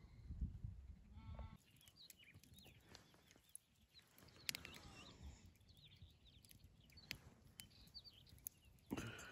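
Flock of sheep bleating faintly, with one short bleat about a second in and a louder one near the end. Scattered faint high calls and a few sharp clicks come in between, and a low rumble stops after about a second and a half.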